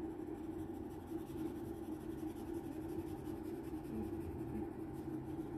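Pencil scratching on paper as it draws, over a steady low hum.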